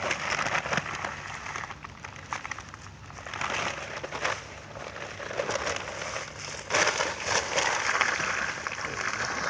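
Dry concrete mix pouring out of a bag into pond water around a post: a rough, rain-like hiss and crackle that comes in surges, heaviest from about two thirds of the way through.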